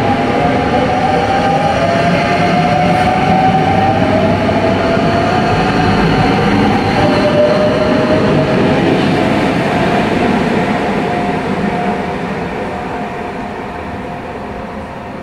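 Trenord double-deck electric suburban train running along the platform. A wheel-and-track rumble sounds under a whine from the electric motors, which climbs slowly in pitch in two overlapping tones. The rumble fades over the last few seconds as the train draws away.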